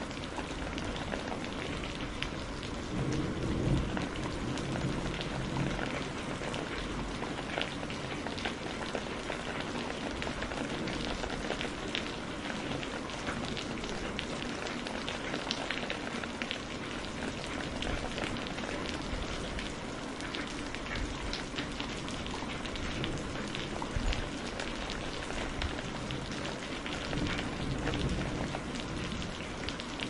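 Steady rain falling, with many separate drops splashing and a low swell in loudness about three to four seconds in.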